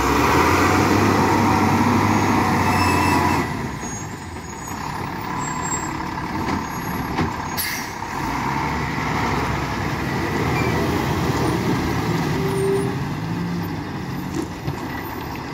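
Diesel engines of loaded ten-wheel goods trucks running under load. The nearest engine is loudest for the first three and a half seconds. About halfway through comes a short air-brake hiss, and near the end a second truck's engine passes close by.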